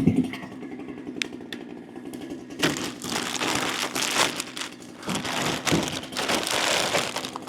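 Packaging crinkling and rustling as a new chainsaw is unpacked, starting about two and a half seconds in, over the steady idle of a Holzfforma G395XP (Husqvarna 395XP clone) chainsaw.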